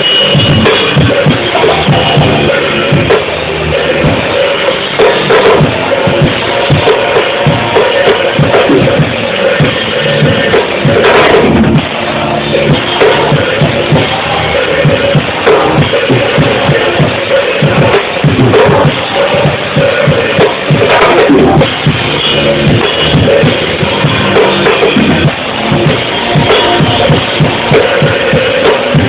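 Loud praise band music driven by a busy drum kit, with bass drum and snare hits keeping a steady beat.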